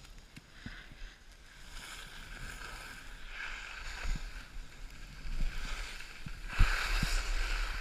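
Skis scraping and hissing over snow through downhill turns, swelling with each turn and loudest near the end, where there is a sharp knock. A low wind rumble on the microphone runs underneath.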